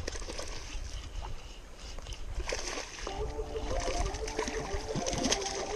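A hooked fish splashing and thrashing at the water's surface while a spinning reel is cranked, the reel's steady whir starting about halfway through.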